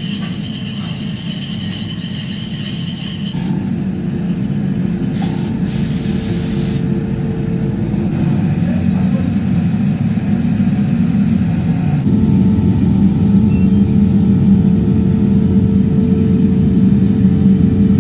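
Steady low drone of heavy machinery with a faint steady hum over it, getting louder in steps about three and a half seconds in and again around twelve seconds.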